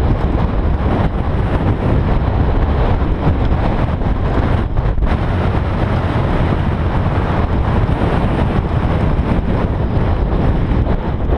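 Wind rushing over the microphone of an onboard camera on a Bergamont BigAir 6.1 downhill mountain bike descending fast over loose rocky gravel, with the tyres crunching and the bike rattling as a run of small clicks.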